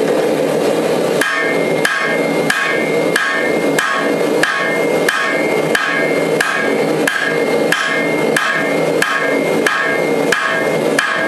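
Cross-peen hammer striking a red-hot steel dagger blank on an anvil in a steady rhythm, about one and a half blows a second, each with a short metallic ring, drawing out the blade's length.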